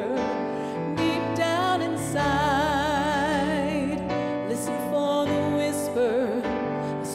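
Woman singing a slow, tender song with keyboard accompaniment. About two seconds in she holds a long note with strong vibrato, over sustained keyboard chords that change every second or so.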